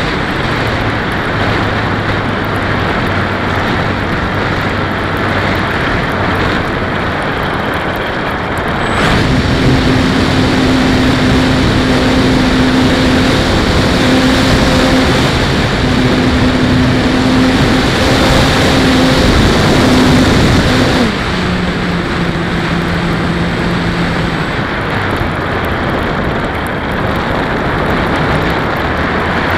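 Onboard sound of a ParkZone T-28 park flyer in flight: its electric motor and propeller whine under a steady rush of wind over the airframe. The whine gets louder and higher about nine seconds in, holds, and drops back about twelve seconds later.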